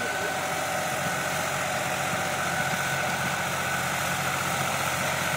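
New Holland 6010 tractor's diesel engine running steadily as it pulls a seven-tine chisel plough through dry soil.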